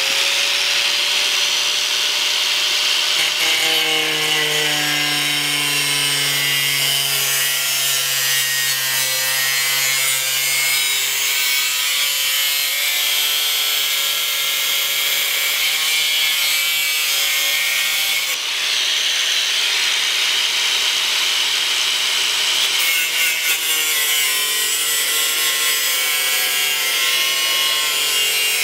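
A 4.5-inch angle grinder with a thin metal-cutting wheel cutting through a Mini Cooper's steel front fender arch. It makes a steady, harsh grinding, and the motor's whine wavers in pitch as the wheel is worked along the cut. The grinding briefly eases about two-thirds of the way through.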